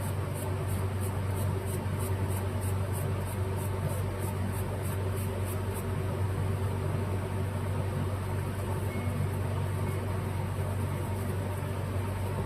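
A small brush scrubbing a carburetor part wet with carb cleaner: light scratchy strokes, about three to four a second, stopping about six seconds in. Under it runs a steady low hum.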